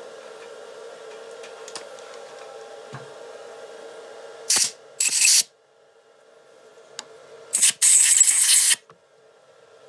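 Compressed air blown in four short hissing blasts, clearing swarf out of a freshly drilled and reamed tapered hole in a small lathe-held spindle. The last blast, near the end, is the longest.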